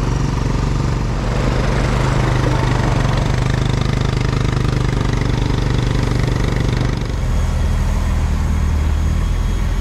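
Honda ATV engine running steadily at low throttle while it pushes a dirt late model race car. The engine note drops lower about seven seconds in as it slows.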